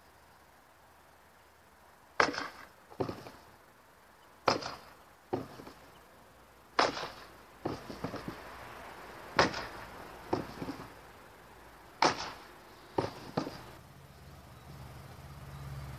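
A longsword waster striking a tape-wrapped wooden pell: five sharp hits about two and a half seconds apart, starting about two seconds in, each followed by a lighter knock or two.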